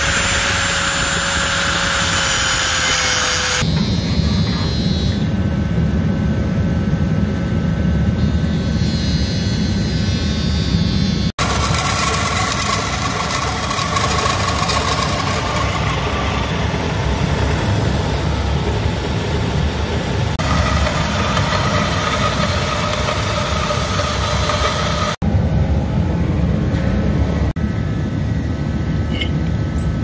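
Portable forced-air shop heater running steadily, a continuous blower-and-burner noise. A motor whine falls slightly in pitch over the first few seconds, and the sound breaks off for a moment twice.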